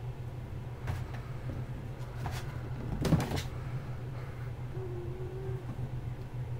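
Knocks and rattles of playing kittens bumping the frame of a fabric play tent and a ball on a wooden floor: a couple of single knocks, then a louder cluster about three seconds in, over a steady low hum.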